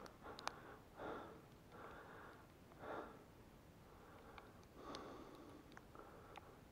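Near silence with a person's soft breaths and sniffs close to the microphone, about one a second, and a few faint ticks.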